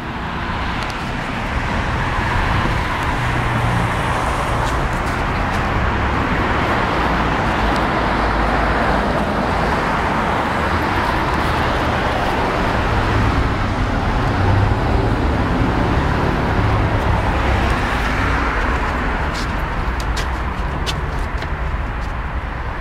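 Road traffic on a city street: cars driving past close by, a steady rush of tyres and engines.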